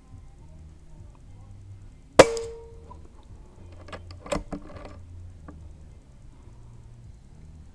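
A single shot from a P15 PCP air gun, a sharp crack with a brief metallic ring that dies away within about half a second. About two seconds later comes a short run of clicks and knocks.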